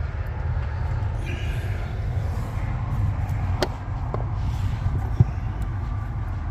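Pliers working at a 10-amp blade fuse in a truck's cramped fuse panel: a few small clicks, then one sharp click about five seconds in, over a steady low hum.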